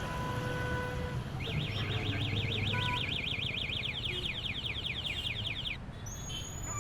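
Car alarm siren sweeping rapidly up and down, about six times a second, switching to quicker falling chirps, then cutting off about a second before the end. A steady low traffic rumble sounds underneath.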